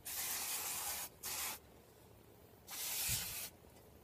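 Aerosol brake parts cleaner hissing from the can in three bursts (about a second, a short half-second, then most of a second), sprayed onto an assembled front brake rotor and caliper to dissolve grease off them.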